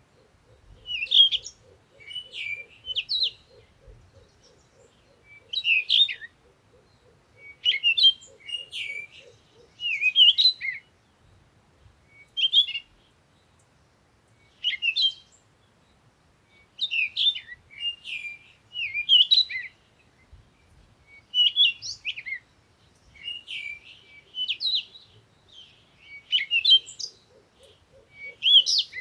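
Birds chirping: short, quick phrases of high chirps, repeated every second or two.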